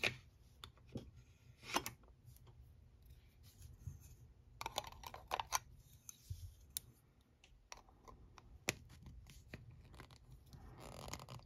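Light clicks and short scratchy scrapes of nail-stamping tools being handled: a clear plastic stamper and a polish bottle knocking and rubbing against a metal stamping plate and silicone mat. The scrapes come in a brief cluster about halfway through and again near the end.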